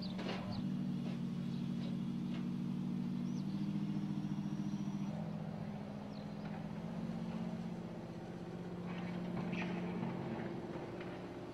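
Mercedes-Benz G-Class SUV's engine running steadily at low revs as the vehicle crawls up a steep steel ramp, its note shifting a few times, with a few faint clicks.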